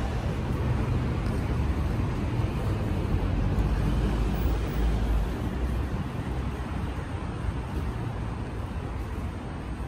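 City street traffic noise: the rumble of passing vehicles, loudest about four to five seconds in, then easing off.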